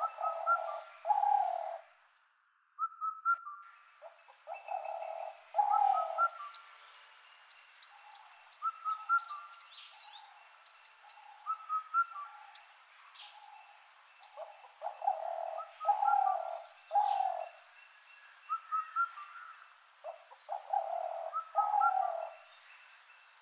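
Several birds calling: a repeated low two-note call, with shorter higher notes and quick high chirps and twitters among them.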